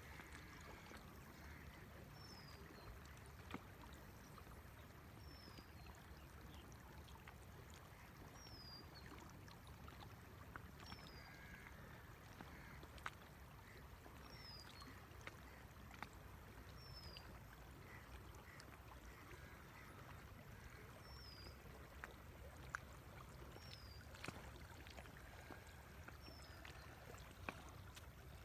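Faint, steady rushing of a river, with a high, short falling chirp repeated every couple of seconds and a few sharp ticks.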